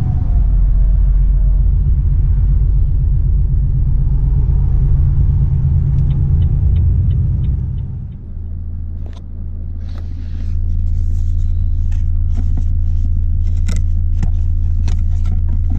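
Cab sound of a Volvo FH 460 truck's six-cylinder diesel under way, with heavy low engine and road rumble and a short run of quick, even ticks. About eight seconds in the rumble drops away and the engine settles into a steady low idle-like drone. Scattered sharp clicks and knocks follow inside the cab.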